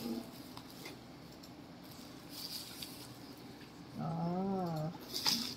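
Soft crinkling and rustling of bubble wrap as a ceramic coaster is pulled out of it. About four seconds in, a voice holds a wavering, drawn-out hum for about a second.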